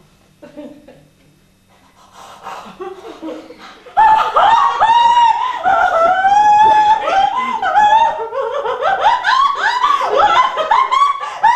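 A woman's voice wailing loudly in long cries that slide up and down in pitch, starting suddenly about four seconds in, after softer laughter-like sounds.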